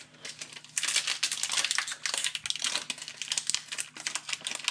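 Foil Pokémon booster pack wrapper crinkling as it is handled, a dense run of irregular crackles that thickens about a second in.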